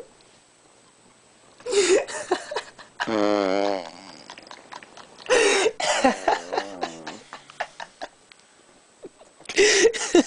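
A sleeping man snoring: three harsh, rattling snores about four seconds apart, the first drawn out into a long wavering whine.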